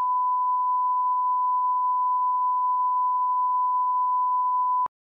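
A 1 kHz line-up test tone played with broadcast colour bars: a single steady pure tone that serves as the audio level reference. It cuts off abruptly near the end.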